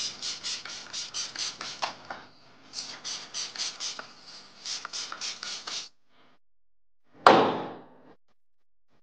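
Small hand-pump spray bottle misting in quick repeated squirts, about four a second, with a brief pause about two seconds in. The squirts stop about six seconds in, and a single loud thump follows about a second later.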